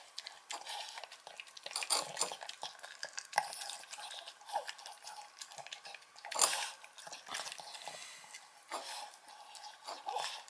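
A dog eating and licking a bowl clean: irregular wet licking and chewing, with its muzzle knocking the bowl in clinks. Louder clatters come about two seconds in, about six and a half seconds in and near the end.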